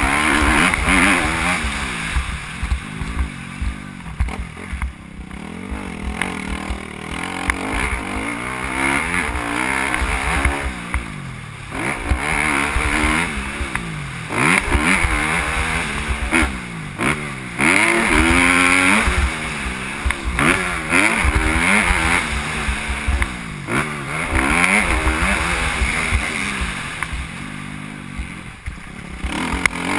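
Motocross bike engine heard from a bike-mounted camera, revving hard and shifting up, pitch climbing and dropping again and again, with brief throttle-offs every few seconds for corners and jumps. Wind and track rumble on the microphone underneath.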